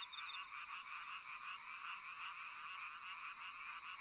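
A steady night chorus of calling frogs and insects: high trills that swell and fade about two to three times a second, with a brief run of quick high chirps at the very start.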